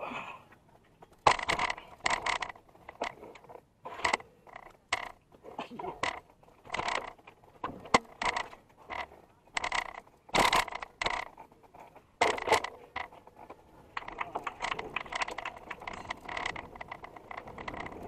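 Mountain bike being wheeled by hand: irregular clicks and clacks from the bike, with the freewheel hub's rapid ticking setting in about three-quarters of the way through.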